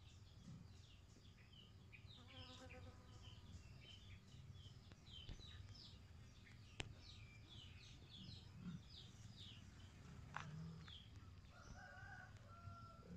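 Faint outdoor ambience of small birds chirping, many quick high chirps over and over, with a longer, lower call with a rooster-like ring about two and a half seconds in and another lower call near the end. Two sharp clicks stand out, about seven and ten seconds in.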